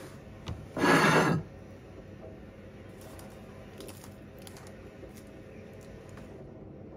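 Packaging being handled: one loud rustling scrape of foam and plastic wrap lasting about half a second, about a second in, then scattered light clicks and rustles as the model is handled.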